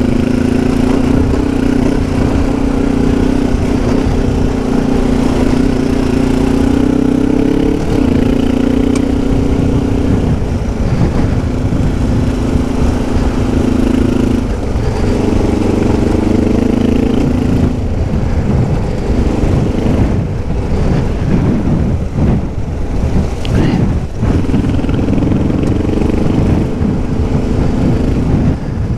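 Kawasaki KLE 500 dual-sport motorcycle's parallel-twin engine running under way on a loose dirt track, its pitch rising and falling with throttle and gear changes. It eases off and runs unevenly for a few seconds past the middle, then picks up again.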